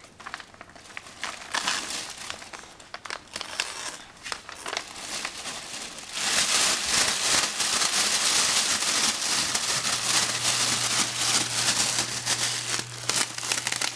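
Thin clear plastic film crinkling and crackling as it is shaken and crumpled in hands, a baby's and then an adult's. It starts as scattered crackles and gets much louder and denser about six seconds in.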